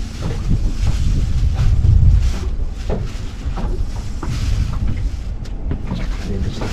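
Wind buffeting the microphone on an open boat: a heavy low rumble that swells and fades, with scattered short knocks and clicks.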